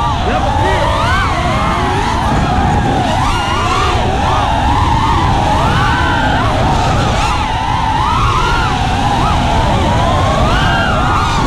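Several FPV racing quadcopters whining at once, their motor and propeller pitch rising and falling constantly with the pilots' throttle, over a low rush of prop wash and wind.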